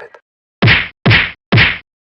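Three loud whacks, evenly spaced about half a second apart, each with a sharp onset and a quick fade: a comedic hit sound effect.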